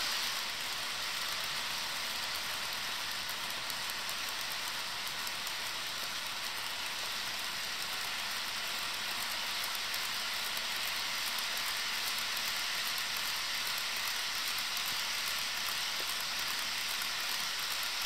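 Steady rolling hiss of a long string of HO scale covered hopper cars running along model track.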